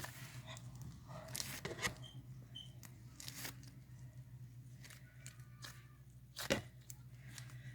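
Soft slime being handled and stretched, giving scattered short sticky crackles and one sharp click near the end, over a steady low hum.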